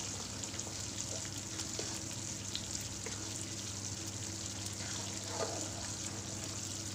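Wheat flour and ground gond (edible gum) frying in hot ghee in a steel kadhai, sizzling steadily with faint scattered ticks as it is stirred with a ladle; the gum is puffing up inside the roasting flour. A low steady hum runs underneath.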